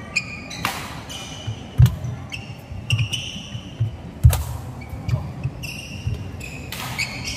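Badminton rally: sharp racket hits on the shuttlecock, the loudest about two and four seconds in, among repeated dull thuds of players' footsteps on the wooden court and short squeaks of shoes.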